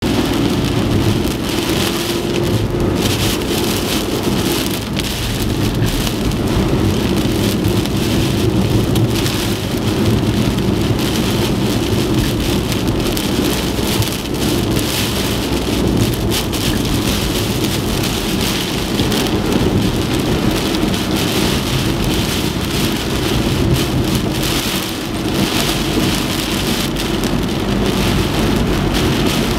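Typhoon rain and wind: a steady, heavy downpour with a continuous low rumble.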